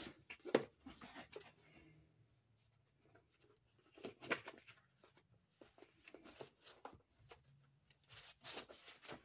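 Pages of a paperback book being flipped and leafed through by hand: faint, scattered paper rustles and flicks.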